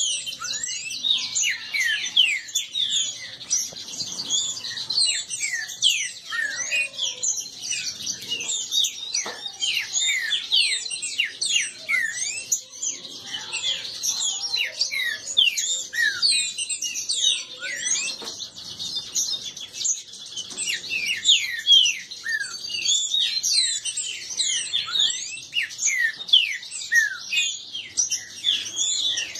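Caged green-winged saltators (trinca-ferro) singing against each other in a fast, unbroken stream of overlapping whistled phrases.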